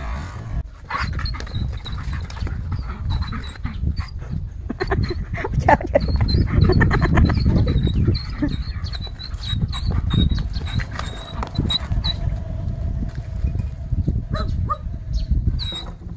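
A dog growling and scuffling on dirt as it grapples with a plush toy tiger, loudest in the middle of the tussle.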